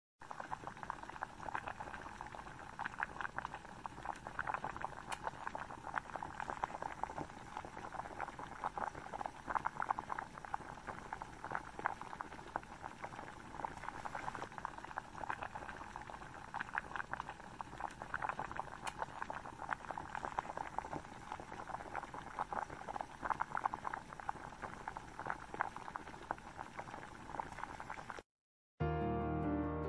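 Maggi noodles boiling in a shallow pan of masala water: a steady bubbling made of many small pops. Near the end it cuts off for a moment and background music begins.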